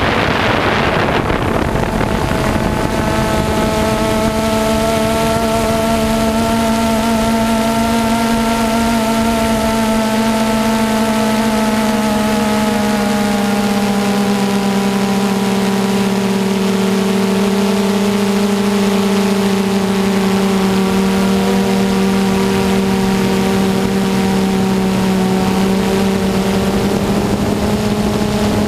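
Quadcopter drone's motors and propellers humming steadily from the drone's own microphone. The pitch sags a little in the middle and climbs again near the end, with wind rushing over the microphone in the first second or so.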